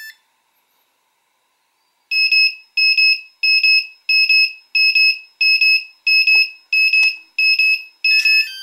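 Walkera Furious 320 quadcopter's loss-of-signal alarm beeping loudly: a steady run of identical high beeps, about two a second, set off because the transmitter has been switched off.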